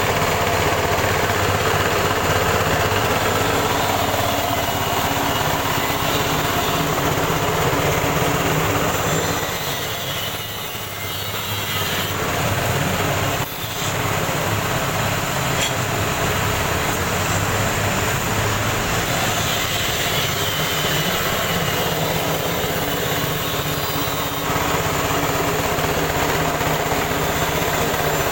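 KD 350 rice huller (selep padi) machine running with a steady mechanical drone and low hum. The noise sags for a few seconds near the middle, then comes back up suddenly.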